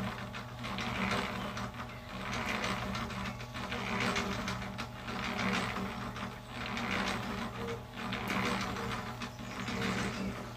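Small Harbor Freight 1¼ cubic foot electric cement mixer running while it mixes a batch of concrete: a steady motor hum under a rattling, churning sound from the turning drum that swells and fades about every one and a half seconds.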